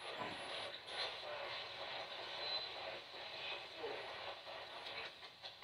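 Low, steady radio static from a ghost-hunting spirit box sweeping through stations, heard through its small speaker.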